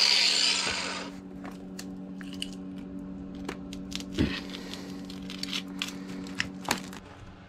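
An angle grinder's cutting noise on steel roller chain fades out in the first second. Then come scattered metallic clicks and rattles of the roller chain being handled and a cut link worked apart with slip-joint pliers, over a steady low hum that stops near the end.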